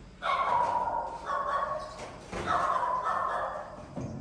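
Baby macaque giving three drawn-out calls in a row, each about a second long and falling slightly in pitch, with a couple of low thumps in between.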